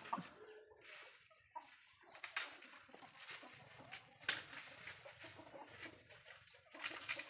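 Chicken clucking faintly now and then, with a few short, sharp sounds spread through an otherwise quiet stretch.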